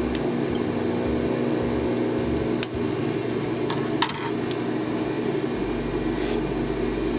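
Metal shears snipping thread, then set down with a sharp metallic clack on the sewing machine table about four seconds in, over a steady background hum.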